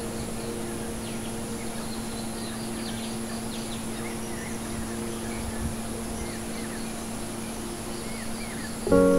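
Soundtrack music: a soft chord held steadily, with faint bird chirps over it, then a piano chord struck loudly near the end.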